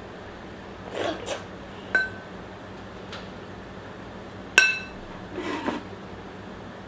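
Eating utensils clinking against a dish twice, the second clink louder and ringing, with softer scraping and rustling sounds between.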